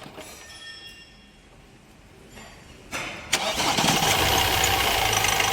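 Mahindra Marazzo's common-rail diesel engine being cranked and catching about three seconds in, after a quiet stretch with the engine off, then running steadily at idle.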